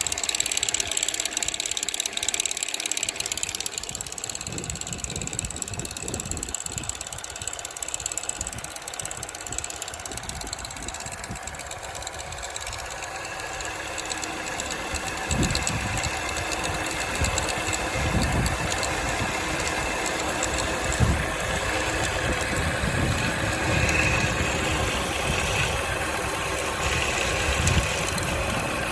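2007 Chevrolet Cobalt's 2.2 L Ecotec four-cylinder engine running at idle with a knocking rattle, which the uploader puts down to the timing chain at start-up. It is a little louder in the first few seconds, then settles to a steady run, with a few low thumps in the second half.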